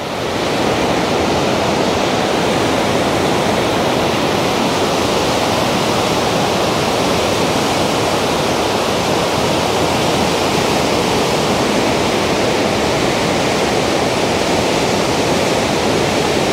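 Steady rush of white-water rapids: the Waikato River pouring through the narrow rock chasm of Huka Falls.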